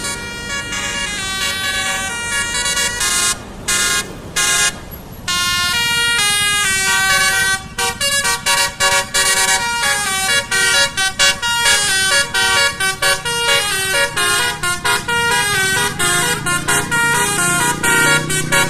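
Basuri telolet horn, the multi-note musical air horn fitted to Indonesian buses and trucks, playing a tune. Longer held notes come first, broken by three short gaps, and then fast runs of short notes follow.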